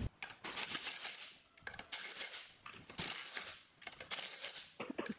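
Cordless power driver running in about four short bursts, each under a second, with a fast rattle, as it drives the bolts that hold a pump's body casing, then a few clicks near the end.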